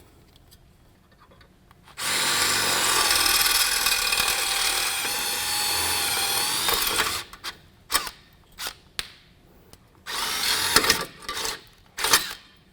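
Power drill running steadily for about five seconds as it drills out the rivet holding the factory door tether, followed by a few clicks and a shorter burst of drilling near the end.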